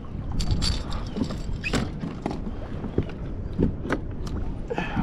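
Low rumble of wind on the microphone and water around a kayak, with scattered short clicks and knocks.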